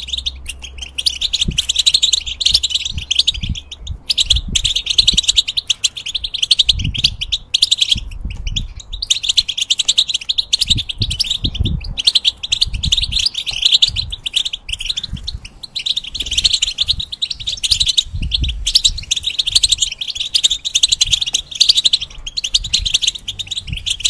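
European goldfinch singing: a fast, almost unbroken twittering song of rapid chattering phrases, with a few short pauses. There are occasional low thumps underneath.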